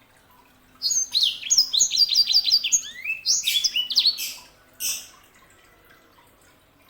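Yellow-fronted canary singing a fast, high run of chirps and trills for about three and a half seconds, then one more short note a moment later.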